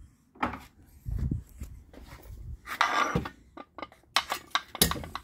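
Handling noise of a removed car water pump being turned over and moved: scattered knocks and clicks, a brief scrape about three seconds in, and a quick run of sharp clicks near the end.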